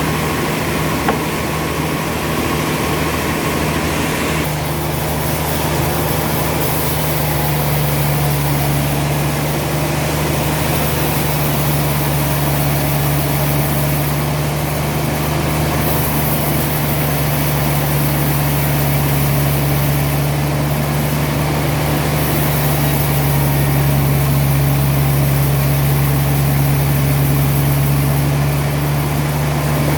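Sawmill machinery's heavy engine running steadily, a low drone that holds one pitch and grows slightly louder about three quarters of the way through.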